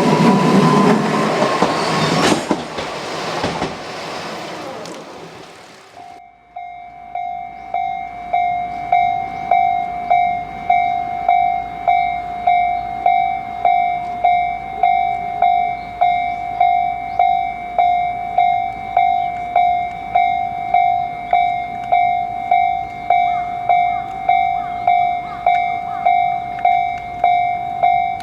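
A train running past with a rising whine, its noise dying away over the first six seconds. Then a Japanese level-crossing warning bell rings, its "kan-kan" strikes repeating evenly at about three every two seconds, swelling up over the first couple of seconds and then holding steady.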